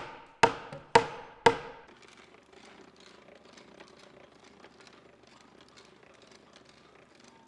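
Mallet striking a 2-inch chisel three times, about half a second apart, driving it into the timber to chop out a mortise between bored holes; each blow is sharp and rings briefly. After the third blow only faint small ticks and scrapes remain.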